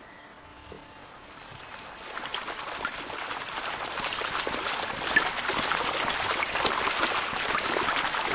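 Leaves and twigs of a garden hedge rustling and crackling as something pushes through them, starting faintly about two seconds in and growing steadily louder.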